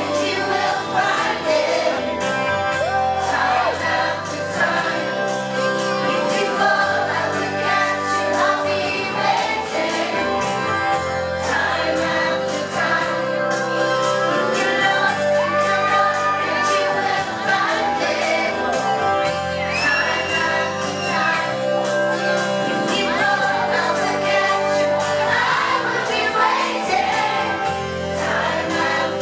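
Live pop band music with a woman singing, recorded from the audience at a concert.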